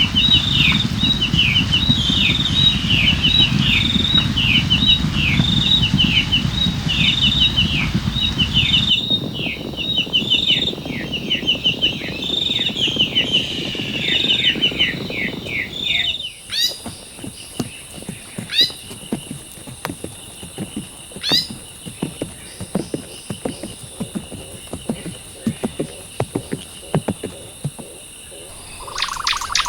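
Birds calling with rapid, short falling chirps repeated over and over, over a low rumble. About halfway through this gives way to a steady high-pitched insect drone with scattered clicks.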